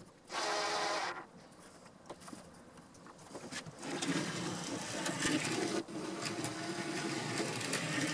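OO9 narrow-gauge model locomotive running on the track, its small electric motor and wheels giving a steady hum from about four seconds in. A short louder burst of noise comes about half a second in.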